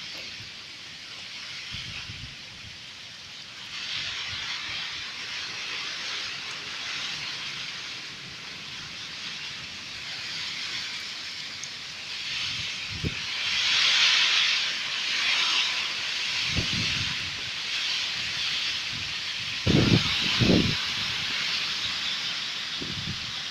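Heavy rain and gusting wind of a strong storm, a steady hiss that swells and eases in gusts and is loudest about halfway through. A few short low thumps come near the middle and twice close together about 20 seconds in.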